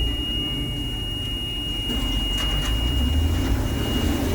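Combine harvester running steadily while harvesting soybeans, heard from inside the cab, with a thin steady high-pitched whine over the low engine hum.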